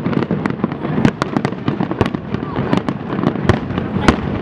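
Fireworks display going off: a dense, continuous run of sharp bangs and crackles, several a second, over a rumbling background of further bursts.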